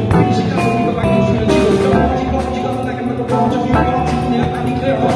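Live band playing a song on electric guitar, bass guitar, drums and electric keyboard.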